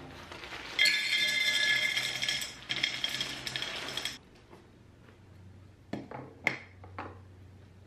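Dried soapnut shells poured from a cloth bag into a tall glass jar, a dense rattling clatter for about three seconds. Then a few sharp clinks as a bamboo lid is set on the glass jar.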